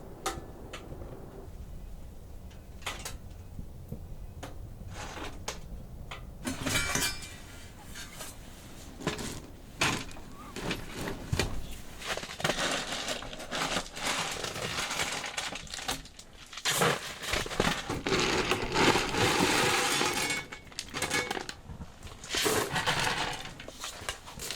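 Hard objects being handled: irregular clinks and clatters mixed with longer stretches of rustling and scraping, busiest in the second half.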